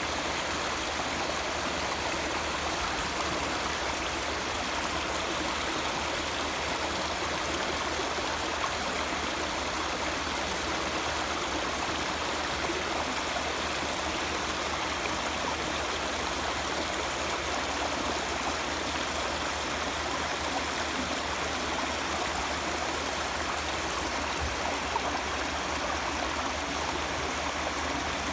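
A clear mountain stream flowing over rocks, a steady rushing and gurgling of water.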